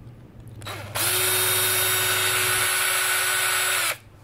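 Electric drill-driver running steadily at one pitch for about three seconds, spinning up about a second in and stopping abruptly near the end.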